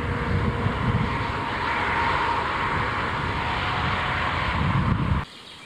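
Steady motorway traffic noise: the tyres and engines of passing lorries and cars make a continuous rushing with a low rumble. It cuts off suddenly about five seconds in.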